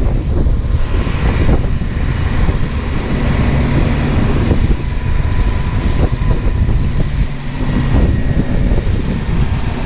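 Wind rushing over the microphone of a bicycle riding fast just behind a city bus, mixed with the steady drone of the bus's engine and a faint steady whine.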